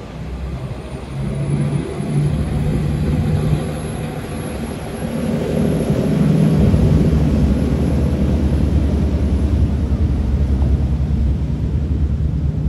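Catamaran ferry's diesel engines running as it pulls away from the wharf, a steady low drone that grows louder about halfway through as the ferry powers up.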